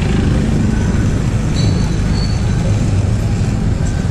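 Motor scooter riding slowly through a busy street: its engine running under a heavy, fluctuating rumble of wind on the microphone, with surrounding traffic noise.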